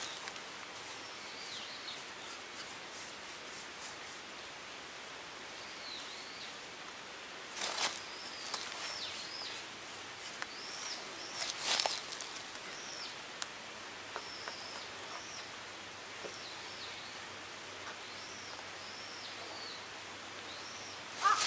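Small birds chirping, short repeated calls scattered through a quiet outdoor background. A couple of brief scraping strokes of a paintbrush on wood come in about eight and twelve seconds in, and again at the very end.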